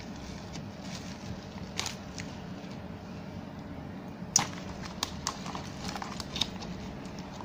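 Plastic packaging being handled: a clear plastic bag and tub crinkle and give off a few sharp clicks and taps, the loudest about four and a half seconds in and several more soon after, over a steady low hum.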